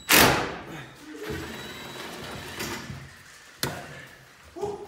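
A loud metallic bang against the steel body of a 1972 Toyota FJ40 Land Cruiser right at the start, ringing off over about a second. Lighter knocks and rattles of tools and parts follow, with one sharp click later on.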